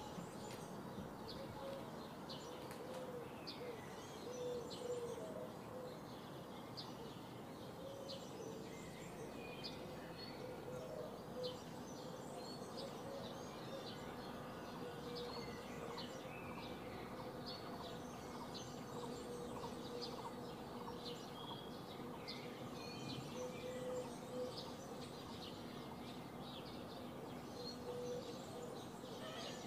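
Faint birdsong: many short chirps and calls from several small birds, scattered throughout, over a steady low background noise.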